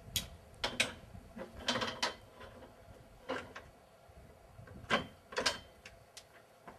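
A horse trailer's front bars being fitted back into place: a series of irregular sharp clicks and knocks, with a cluster about two seconds in and two louder knocks about five seconds in.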